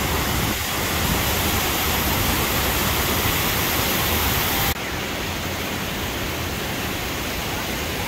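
Rushing white water of a river rapids ride: water pouring down the channel and spilling over the concrete walls in cascades, a steady heavy rush. A little past halfway it cuts abruptly to a quieter, duller rush.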